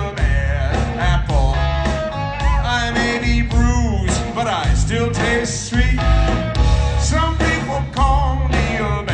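Live blues-rock band playing loud through a concert PA: electric guitar lines with bent notes over bass and a steady drum beat.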